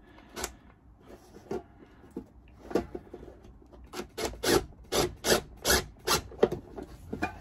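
Short rasping scrapes, scattered at first, then a quick run of about two or three a second from about four seconds in, as self-drilling tek screws are driven through carpet into a drawer's aluminium lip with a cordless impact driver.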